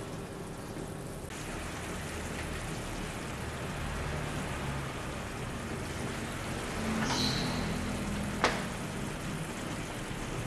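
Water boiling hard in a shallow pan under a bamboo steamer: a steady bubbling hiss. A brief high chirp sounds about seven seconds in, followed by a single sharp click.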